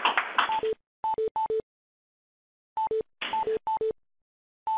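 Electronic conference-call tones: short two-note beeps, a higher note dropping to one an octave lower, repeated in quick clusters with dead silence between, as callers drop off the line at the end of the call. A brief stretch of noise comes before the first beeps.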